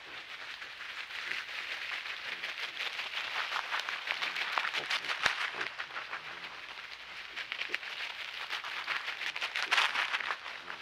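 Dry leaf litter and grass rustling and crackling, a dense run of tiny clicks that swells about halfway through and again near the end.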